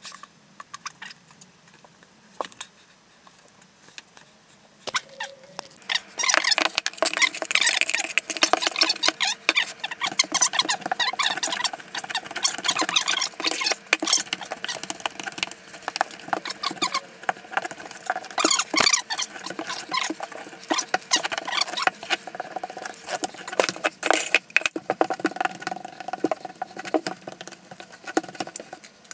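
Grout float scraping and squeaking over glass mosaic tile as grout is pressed into the joints. It is a dense, irregular run of scratchy strokes that starts about six seconds in.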